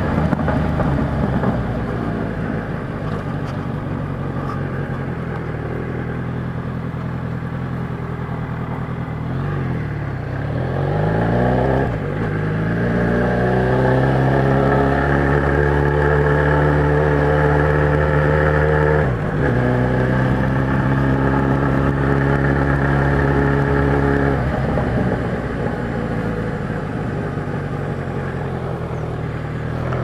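Kawasaki Z1000 inline-four motorcycle engine running under way. About ten seconds in its pitch dips, then climbs steeply as it accelerates. It then holds steady, breaks briefly a little before halfway, and settles lower near the end.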